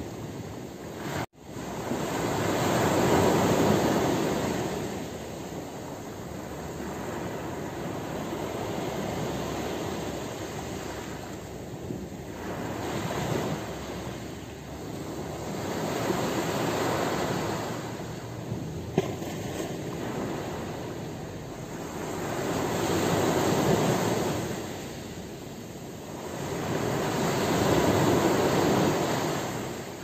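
Small waves breaking and washing up a pebble beach, the surf swelling and fading every five or six seconds. The sound cuts out for an instant about a second in.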